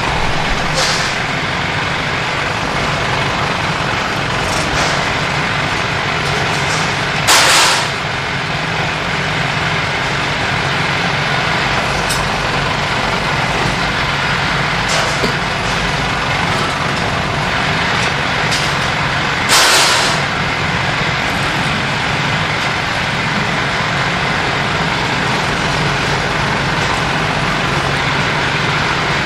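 Bench drill press running steadily in a metal workshop, drilling through a steel shovel blade, with a continuous machine hum. Two short, loud hisses cut in, one about a quarter of the way through and one about two-thirds through.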